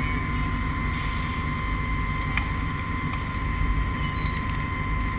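A motor running steadily: a low drone with a constant high whine over it, and a single faint click about two and a half seconds in.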